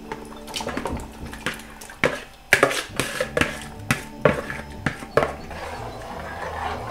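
Metal fork scraping and clinking against a plastic tub as marinated chicken is pushed out into an aluminium stockpot, then a metal spoon stirring in the pot. A series of irregular sharp clinks and knocks, with scraping near the end.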